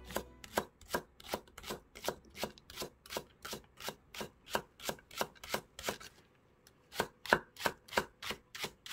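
A sharp Komachi 2 chef's knife slicing a Korean green onion into rounds on a wooden cutting board: a steady run of crisp cuts, about two or three a second, with a short pause about six seconds in before the cutting picks up again slightly faster. The knife is keen enough to cut the onion cleanly instead of tearing it.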